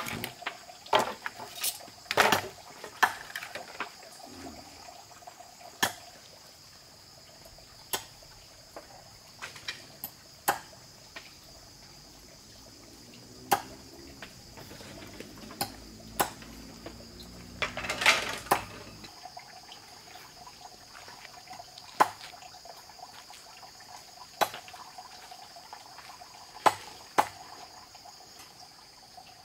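Sharp clinks and knocks of dishes or utensils every second or two, over a steady high chirring of crickets. From about 13 to 19 seconds in, water is poured into a container, rising in pitch as it fills.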